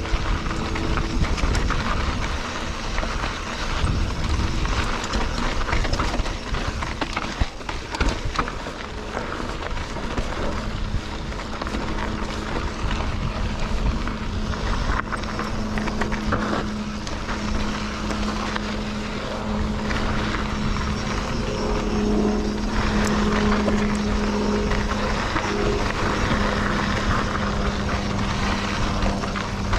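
Mountain bike riding over a dirt trail, heard from the handlebars: a steady rumble of tyres and wind on the microphone, with scattered knocks and rattles over rough ground. A steady low hum joins in about a third of the way through.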